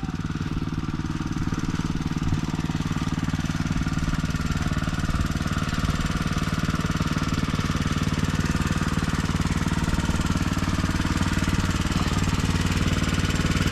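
Small engine of a farm irrigation water pump running steadily at a constant speed.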